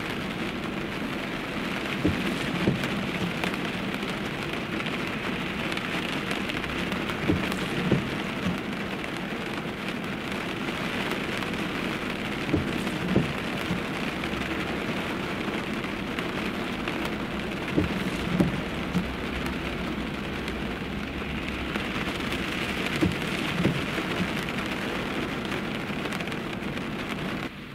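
Heavy downpour of rain falling steadily, with a pair of short dull knocks about every five seconds.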